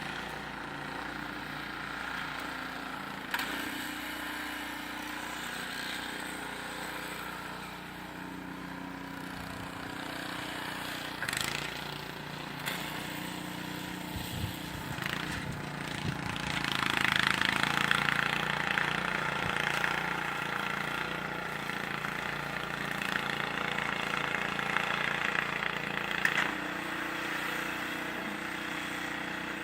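An engine running steadily, with a louder rushing noise for about ten seconds past the middle and a few short knocks.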